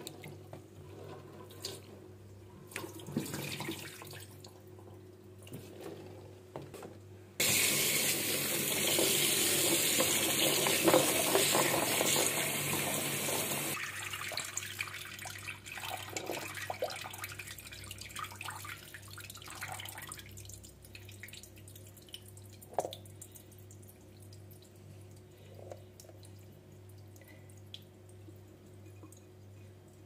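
Water running from a tap into a metal tray of green plums for about six seconds, starting and stopping abruptly about a quarter of the way in. Before and after it, fainter sloshing and handling of the plums in the water.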